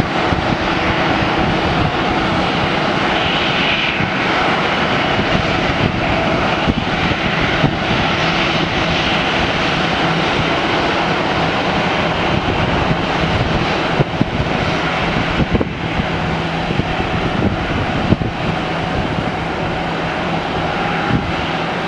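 Airbus A319 airliner's jet engines running steadily as it taxis in to the gate: a continuous rush of engine noise with a low hum underneath.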